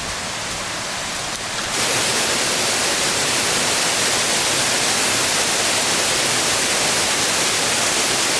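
Waterfall: the steady rush of falling water, which grows clearly louder and brighter about two seconds in.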